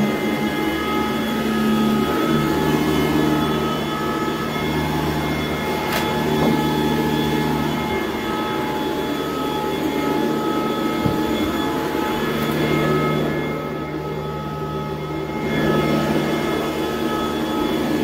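Sanitaire SC899 commercial upright vacuum cleaner running steadily while it is pushed over carpet: a constant motor drone with a steady whine in it. The airy hiss drops for about two seconds roughly three-quarters of the way through.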